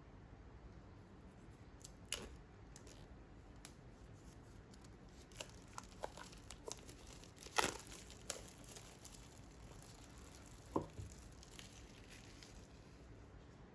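Packaging being handled by hand: scattered crinkling and tearing rustles and light clicks, the loudest about seven and a half seconds in, and a single knock about eleven seconds in.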